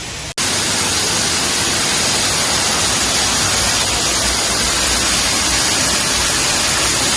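Waterfall: a loud, steady rush of falling water, cutting in abruptly just after the start.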